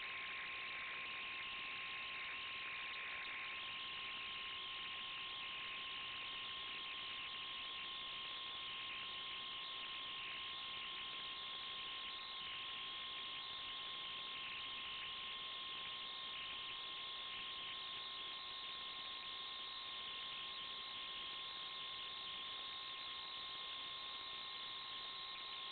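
Steady electronic hiss with a constant thin hum tone, unchanging throughout. This is electrical noise on the audio of the RC truck's onboard FPV camera and video link, not the sound of the truck's motor.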